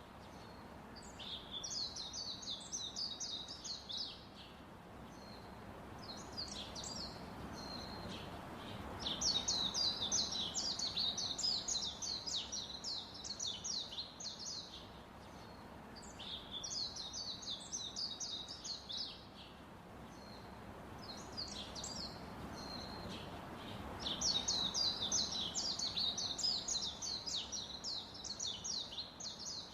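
Birds chirping in repeated bouts of rapid, high chirps, each bout lasting a few seconds with short pauses between. A low background rumble swells and fades twice.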